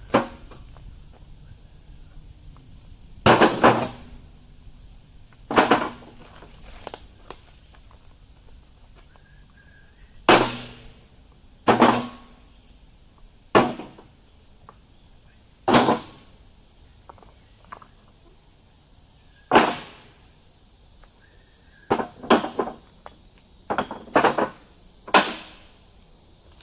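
A run of loud, single sharp knocks, each with a short ring, coming irregularly a second to several seconds apart, with a few quick pairs near the end.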